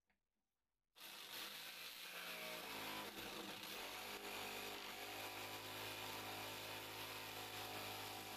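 Corded jigsaw cutting through a wooden board, its motor and blade starting suddenly about a second in and then running steadily.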